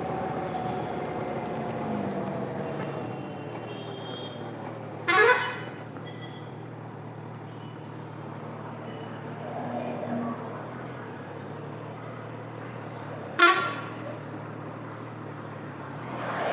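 Onboard sound of a 2025 Kawasaki Z900's inline-four engine falling in pitch as the bike slows, then running low and steady. Short horn toots sound three times: about five seconds in, about thirteen seconds in, and at the end.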